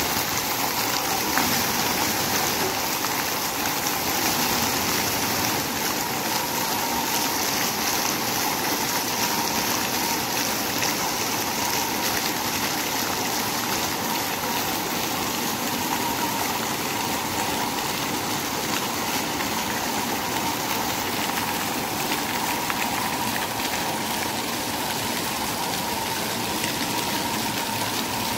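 Indoor fountain: many vertical water jets falling back into a shallow pool, a steady splashing rush of water.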